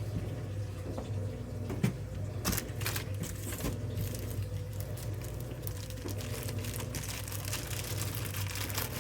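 Rustling and light clicks and knocks as a person handles the metal tool shelf and its packaging, with a sharp click about two seconds in and a run of knocks soon after. A steady low hum continues underneath.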